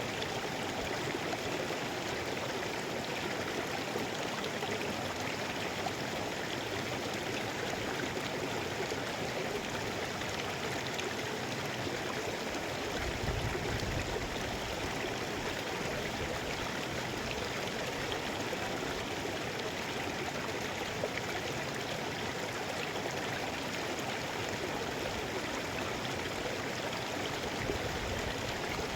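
Mountain stream rushing over rocks, a steady even rush of water, with a brief low rumble about halfway through.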